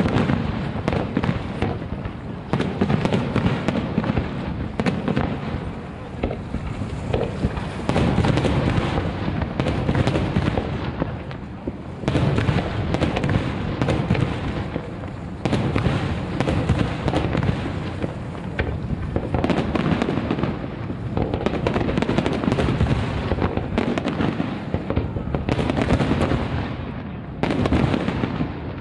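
Aerial fireworks display: shells bursting in quick succession, with many overlapping bangs and crackles that swell into louder volleys several times.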